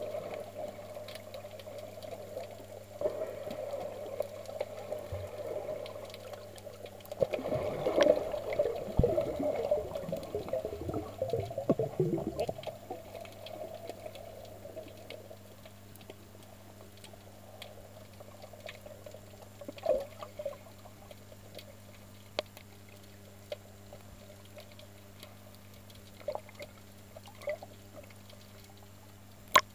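Muffled underwater water noise heard from a camera held under the sea: sloshing and bubbling, busiest for a few seconds from about 7 seconds in, with scattered clicks and a faint steady low hum.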